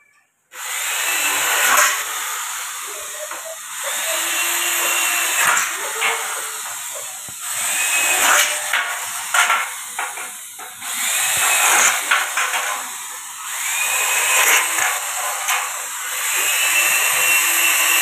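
Corded electric hand drill boring holes through an aluminium sliding-door bottom track, in about half a dozen runs of two to three seconds, each starting with a rising whine as the drill spins up.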